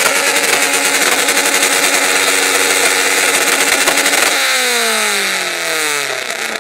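A classic Mini's engine revved hard through a very loud competition exhaust, the winner of the loudest-exhaust contest: held at high revs for about four seconds, then the revs fall away near the end.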